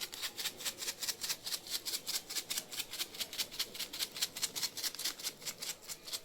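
Red chilli flakes being shaken from a shaker jar onto a pizza: a fast, even rattle of about six or seven shakes a second.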